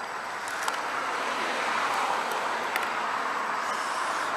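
Steady outdoor background noise, like road traffic going by, growing slightly louder partway through, with a few faint small clicks.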